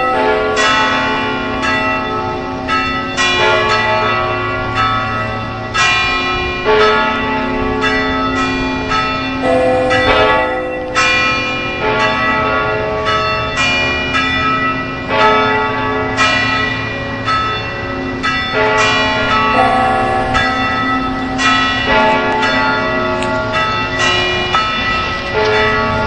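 Bells of several churches ringing together in overlapping peals. Strikes come about one to two a second, and each bell's tone hangs on and blends with the others.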